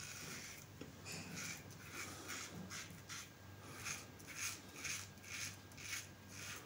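Kanzy Twist safety razor with a Bolzano stainless blade scraping through lathered beard stubble on an against-the-grain pass, in short quick strokes about two to three a second, starting about a second in.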